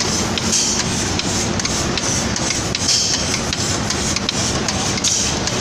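Automatic spray painting machine for cabinet doors running, with a steady mechanical clatter and rubbing from its drive gearboxes and moving spray assembly. A hiss swells about once a second, and there are light ticks.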